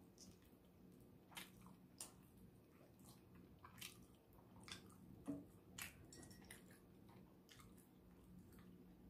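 Faint close-up chewing of rotisserie chicken: scattered wet mouth clicks and smacks over a low steady hum.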